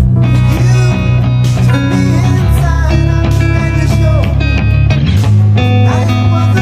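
Background music: a slow song with guitar over sustained bass notes.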